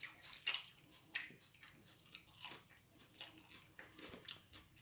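Faint, irregular wet clicks and soft squishes of a person eating puttu and fish curry by hand, fingers working the food on the plate.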